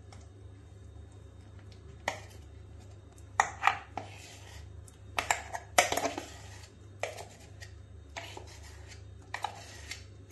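A metal spoon scraping thick ground lentil batter out of a steel mixer jar into a stainless steel bowl: irregular metal-on-metal scrapes and clinks, starting about two seconds in, the loudest in the middle.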